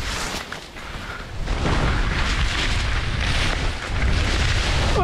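Skis scraping and sliding over crusty snow on a steep descent, with heavy wind rumble on the microphone. Louder from about a second and a half in.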